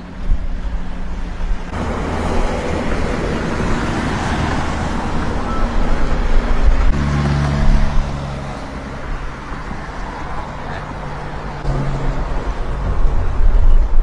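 Road traffic passing, a steady hiss of tyres and engines, with a vehicle's low engine hum passing by about seven seconds in.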